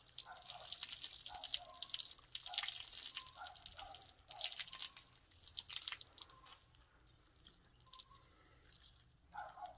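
Water dripping and splashing onto the ground as a soaked bobcat pelt is wrung out by hand. The patter is busiest for the first several seconds and thins out toward the end.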